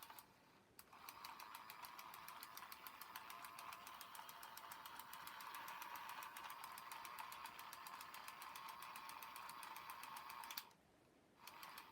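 Battery-powered toy helicopter's small electric motor running, with a faint whir and rapid, even ticking. It starts about a second in and cuts off abruptly near the end.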